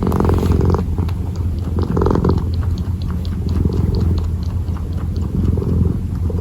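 Kitten purring, a steady low rumble that swells and eases with its breathing, loudest at the start and again about two seconds in. A run of faint light ticks sounds over it in the second half.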